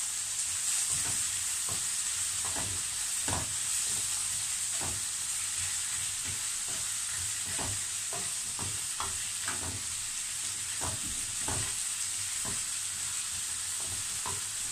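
Sliced zucchini, carrots and broccoli sizzling in a frying pan over a gas flame: a steady frying hiss, with irregular scrapes and taps of a wooden spatula stirring the vegetables against the pan.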